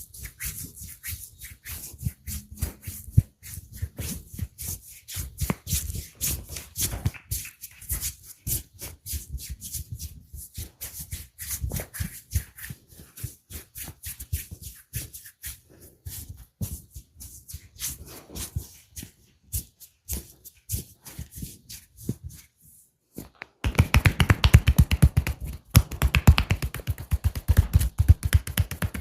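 Percussive massage strokes: hands rapidly tapping and slapping on the body in quick rhythmic strikes. About 24 s in they turn suddenly louder and denser.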